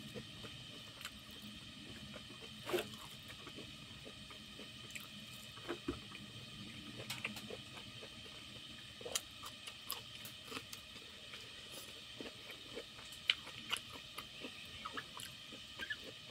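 Eating rice by hand from a stainless steel plate: fingers squishing and mixing rice with curry against the plate, with scattered small clicks and chewing.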